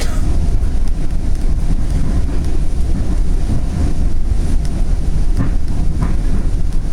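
Northstar commuter train coach in motion, heard from inside: a steady low rumble of wheels on rail, with a few light clicks.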